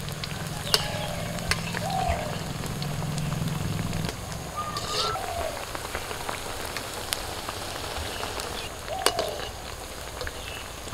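Spiral semolina pitha deep-frying in hot refined vegetable oil in a kadai: a steady sizzle with fine crackling, broken by a few sharp clicks.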